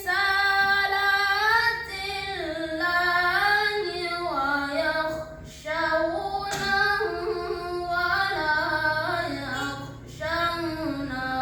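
A child's voice reciting the Qur'an in a melodic, ornamented chant (tilawah): long held notes that slide and waver in pitch. There are brief breaks for breath about five and ten seconds in.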